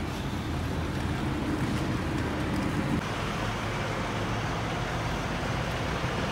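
Steady rumble of semi-truck diesel engines idling and moving around a truck stop. The sound changes abruptly about three seconds in.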